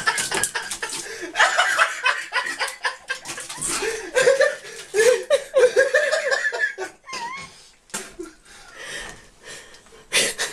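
People laughing in repeated bursts of chuckles and giggles, dying down after about seven seconds.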